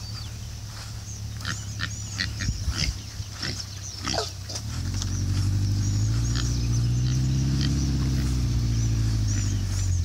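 Pigs making short, sharp calls. About five seconds in, a Suzuki 4x4's engine comes up under load and runs steadily as it tows the pig pen across the grass.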